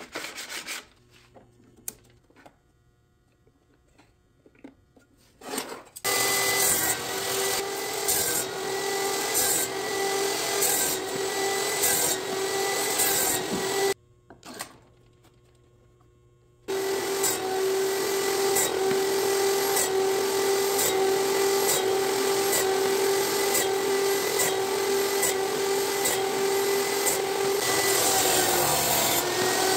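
Skil SPT99-11 worm drive table saw running and cutting wood, a loud steady whine with a strong steady tone. After a few faint handling clicks it comes in abruptly about six seconds in and cuts off abruptly around fourteen seconds. It runs again from about seventeen seconds to near the end.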